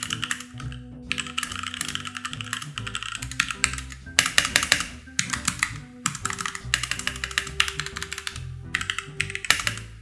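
Fast typing on a HyperX Alloy Origins mechanical keyboard with linear HyperX Red switches: a dense clatter of keystrokes in runs, with brief pauses about a second in, at four seconds and at six seconds. Background music plays underneath.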